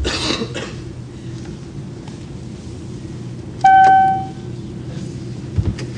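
Airliner passenger call chime sounding once, a single clear ding about three and a half seconds in that fades within a second, over the steady drone of the aircraft cabin. It is the flight-attendant call signal, here set off by a call button that is acting up.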